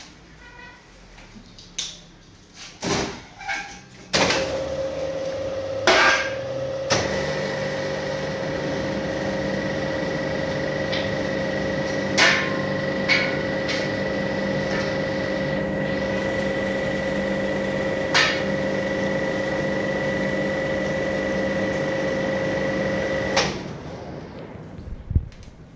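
A machine hums steadily at a fixed pitch, switching on abruptly about four seconds in and cutting off sharply near the end. A few sharp knocks and clatters come before and during it.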